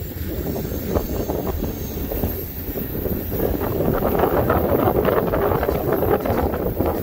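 Reading & Northern coal hopper cars of an anthracite freight train rolling past, their steel wheels clattering and clicking on the rails. The sound grows louder about halfway through as nearer cars go by.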